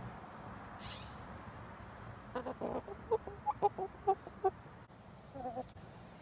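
White chicken clucking: a quick run of about eight short clucks, then one brief call near the end.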